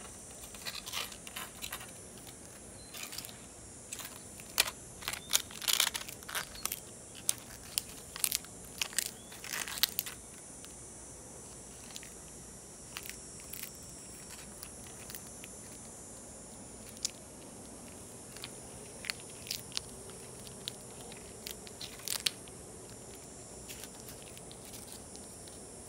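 Shih Tzu puppy chewing and biting dry leaves: quick crackles and crunches of the brittle leaf, dense for the first ten seconds, then sparser, over a steady high hiss.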